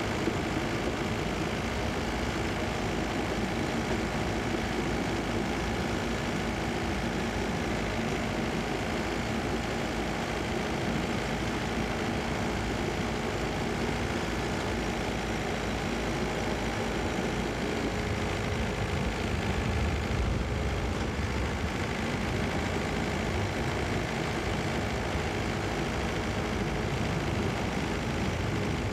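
Steady running rumble of a vehicle travelling along a railway track, engine-like and unbroken, with the low rumble swelling slightly about twenty seconds in.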